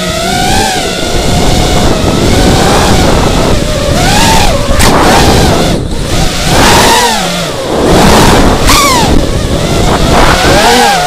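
FPV drone's electric motors and propellers whining, the pitch rising and falling again and again as the throttle is worked. Heavy wind rush sits on the onboard camera's microphone.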